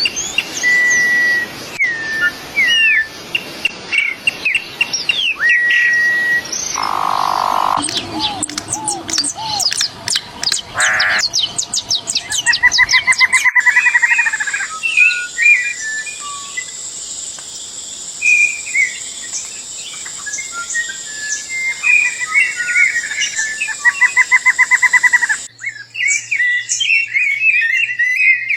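Several wild songbirds singing and calling: clear whistled notes, chirps and rapid trills. The background changes abruptly three times, as one recording is cut to the next.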